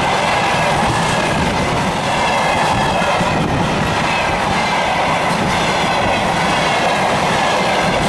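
Freight train of covered hopper wagons passing close by at speed: a steady loud rumble and clatter of steel wheels over the rails, with a faint high metallic ringing above it.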